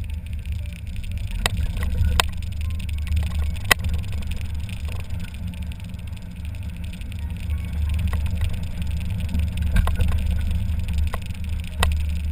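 Mazda Miata's four-cylinder engine and road noise heard from the open cockpit with the top down: a steady low rumble with wind. Several sharp clicks or knocks come through it, the loudest a few seconds in.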